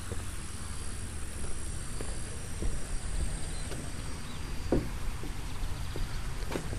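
Footsteps on a wooden plank footbridge, a scattering of soft knocks, over a steady high insect drone and a low wind rumble on the phone microphone.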